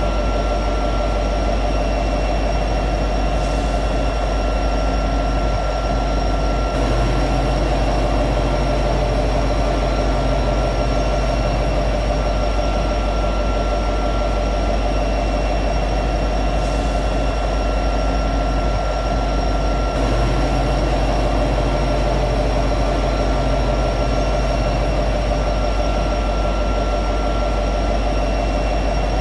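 EMD SD70ACe diesel-electric locomotive's 16-cylinder two-stroke 710 diesel engine running steadily at high idle, a constant drone with steady whining tones above it.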